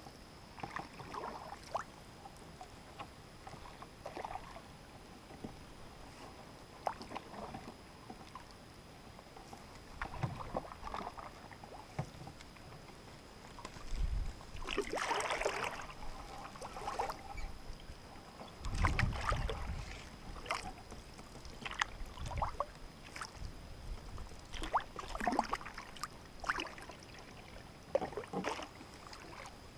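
Canoe being paddled on calm water: irregular swishes and splashes of paddle strokes, with a few dull low thumps, the loudest a little past the middle.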